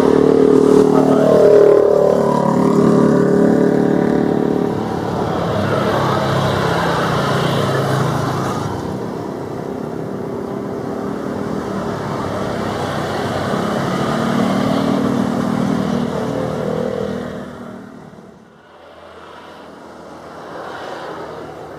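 Jet engines of a landing Citilink Airbus A320 (CFM56 engines): a loud whine and rumble whose pitch falls about a second in, then fades off over the next several seconds. Near the end it drops away suddenly, leaving a quieter distant jet noise.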